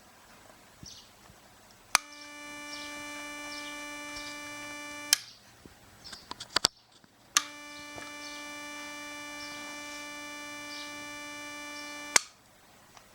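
White's Surfmaster PI metal detector: a knob switch clicks and the detector gives a steady, continuous low tone. Another switch click cuts the tone dead. After a few more clicks the tone comes back on with a click and runs for about five seconds, then stops again at a click. The tone going silent when the tuning knob's on/off switch is clicked is the fault being shown.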